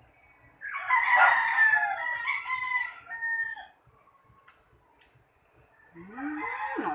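A rooster crowing once, one long call of about three seconds that falls away at the end.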